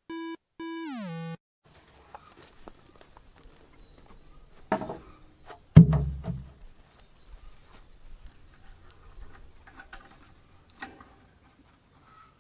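The last notes of a short electronic intro jingle, ending in a falling glide about a second in; then scattered knocks and two heavy thumps about five and six seconds in, the second the loudest.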